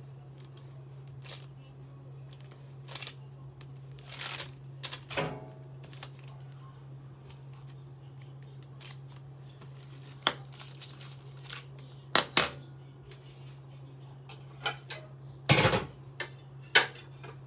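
Scattered light clicks and taps of a fork and dishes on the counter, with sharper clinks of a ceramic plate in the last few seconds, over a steady low hum.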